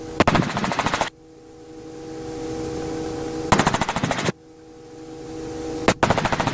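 Robinson R44 helicopter in flight: a steady whine with three short bursts of rapid rotor beating, each under a second long, coming about every two to three seconds.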